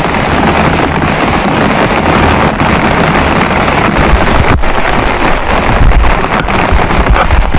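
Heavy rain, loud and steady, with wind buffeting the microphone in a low rumble.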